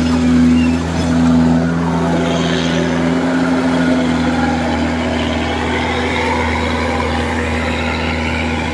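Kubota DC-105X rice combine harvester running at working speed while cutting and threshing rice, a loud, steady engine drone with a constant low hum. It swells slightly twice in the first couple of seconds.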